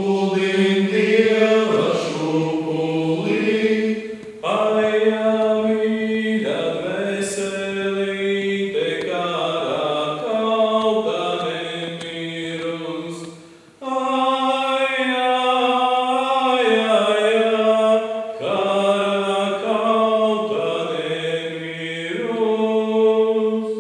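A choir singing slow, held chords in phrases, with a brief break for breath about halfway through.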